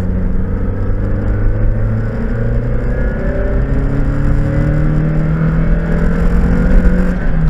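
2003 Mazda MX-5's 1.8-litre VVT four-cylinder engine pulling uphill under load, heard from inside the cabin, its note climbing slowly and then dropping suddenly near the end.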